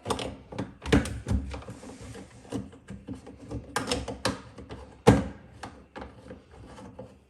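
Drain pipe fittings being handled and pushed together, a string of irregular knocks and clicks, the loudest about five seconds in.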